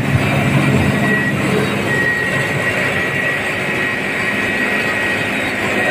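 Belt-driven rice mill running steadily as unhusked rice (palay) is milled into white rice: a dense, even machine noise with a thin, steady high whine that grows clearer about two seconds in.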